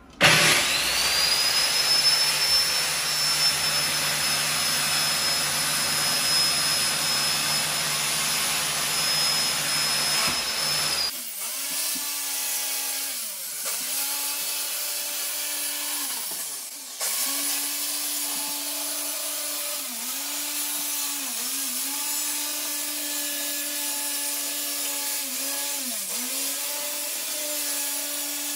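Corded circular saw starting up, its motor whine rising at once to full speed, then cutting through 3/4-inch plywood. Later the motor note dips in pitch several times as the blade loads up in the cut and recovers.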